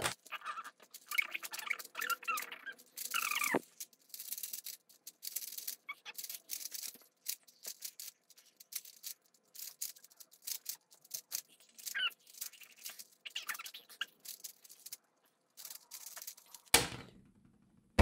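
Plastic Rubik's cube being turned rapidly by hand: a dense run of small clicks and rattles from its layers, with a few short squeaky chirps. Near the end a single loud knock, the loudest sound.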